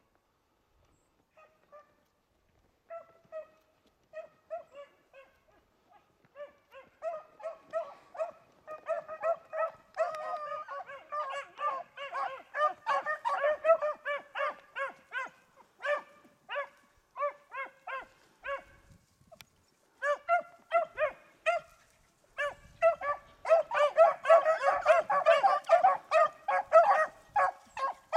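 A pack of beagles baying as they run a rabbit's scent trail. Scattered bays at first build into a dense, overlapping chorus of several hounds that grows loudest near the end as the pack comes close, with a brief lull about two-thirds of the way through.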